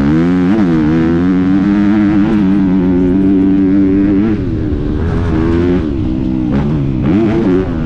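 Honda motocross bike's single-cylinder four-stroke engine at race throttle. The pitch holds high for the first few seconds, drops about four seconds in as the throttle comes off, then climbs again in short pulls near the end.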